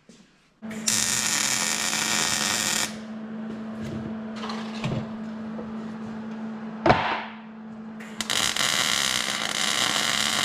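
Welding on a steel frame: two runs of arc hiss, each about two seconds long, over a steady electrical hum from the welder, with a single sharp knock between the runs.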